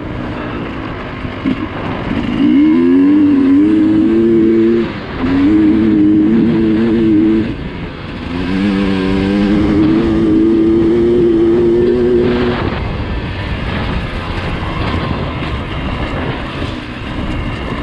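Dirt bike engine under throttle on a trail ride, heard from the bike being ridden: three spells of hard running where the engine note climbs and then holds for a couple of seconds, with easier running between them and a steady rumble of engine and wind noise underneath.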